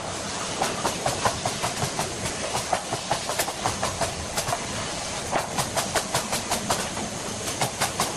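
Workshop clatter: quick, uneven knocks and clicks, several a second, over a steady hiss.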